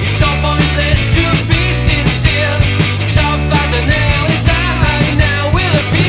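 A three-piece rock band of electric guitar, bass and drums playing a fast punk-rock song, with steady, regular drum hits.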